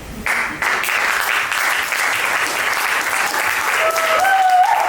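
An audience bursts into applause, starting suddenly just after the start and going on as steady clapping. Near the end a rising high call, like a whoop, sounds over the clapping.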